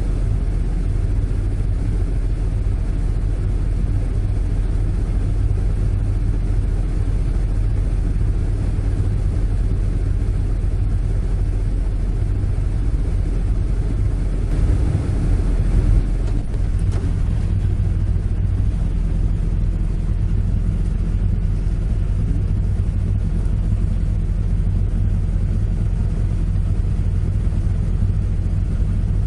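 A Toyota AE86's five-valve 4A-G four-cylinder engine idling steadily, heard from inside the cabin, with a brief louder noise about halfway through.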